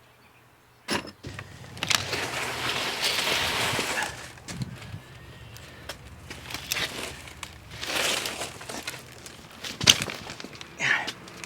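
Scattered knocks and clanks, with a couple of seconds of scraping or rustling about two seconds in.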